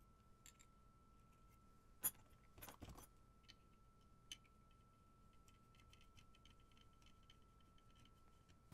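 Faint metallic clicks of a screwdriver on the screw that fastens a replacement MOSFET to a metal heatsink: one sharp click about two seconds in, a short cluster of clicks just before three seconds, another single click, then light ticking.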